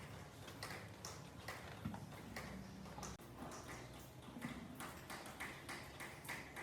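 Faint light taps or clicks, irregular, roughly two a second, over a low steady hum.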